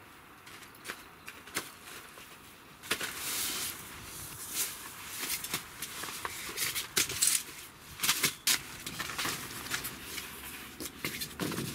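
Fabric rustling and sharp clicks of a folding camp cot's metal frame as it is unfolded and set up, picking up about three seconds in, with rustling and knocks throughout.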